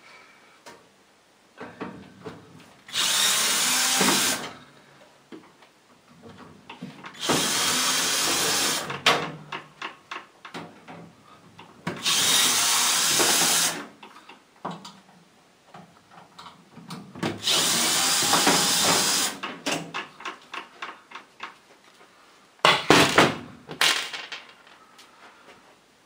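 Cordless drill-driver spinning in four runs of about two seconds each and a short pair near the end, backing out the screws that hold a microwave oven's outer case. Small clicks and knocks of handling come between the runs.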